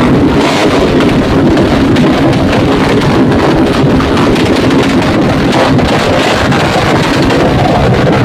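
Vehicle exhaust running loud, a steady rumble crowded with rapid pops and crackles, like firecrackers going off.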